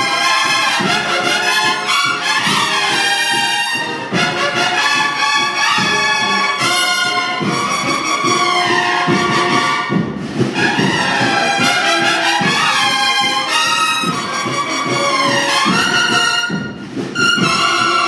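A Spanish cornetas y tambores band playing a Holy Week processional march live. Massed bugles play the melody in harmony, some phrases sliding in pitch, over a steady drum accompaniment.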